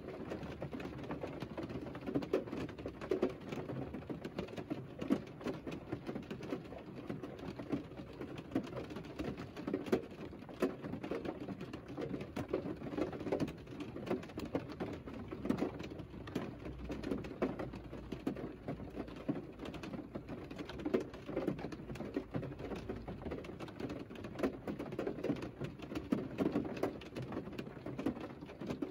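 Rain falling on a parked car, heard from inside the cabin as a dense, steady spatter of drops. A faint low rumble runs underneath for a few seconds past the middle.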